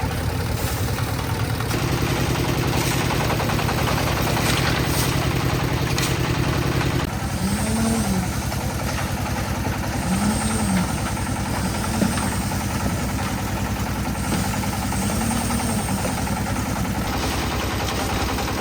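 Concrete mixer's engine running steadily. About seven seconds in its sound changes, and after that a short rising-and-falling whine repeats every two to three seconds.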